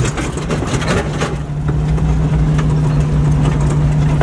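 Jeep Wrangler's engine running slowly in low gear, heard from inside the cabin: a steady hum, with a few short rattles and clicks in the first second or so.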